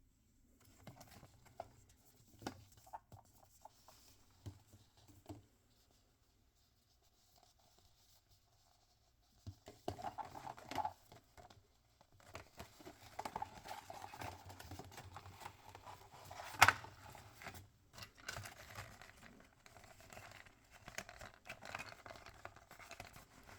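Toy packaging handled and opened by hand: crinkling and tearing of wrapping with scattered clicks and taps, a short pause partway through, and one sharp click about two thirds of the way in.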